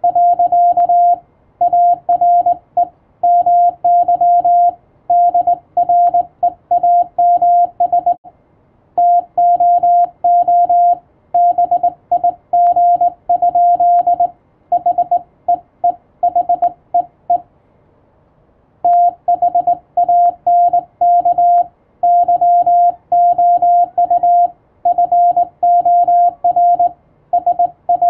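Morse code (CW): a single steady tone keyed on and off in dots and dashes at a brisk even pace, with a pause of about a second roughly eight seconds in and another at about 18 seconds.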